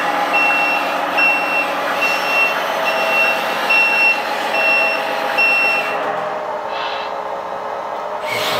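Onboard sound module of a LESU 1/14 Aoue ET30H RC wheeled excavator playing a simulated diesel engine running with a reversing alarm beeping steadily, a little faster than once a second. The beeping stops about six seconds in while the engine sound carries on.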